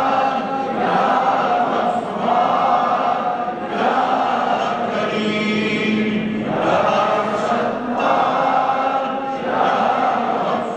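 A group of men chanting together in unison, in repeated phrases about a couple of seconds long.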